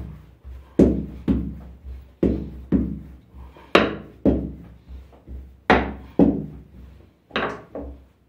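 About ten dull thuds and knocks, many in close pairs, as pieces of dough are slapped, rolled and set down on the work board.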